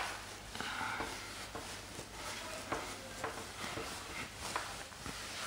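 A cloth wiping a whiteboard clean: repeated rubbing strokes with a few short squeaks, after a single tap at the very start.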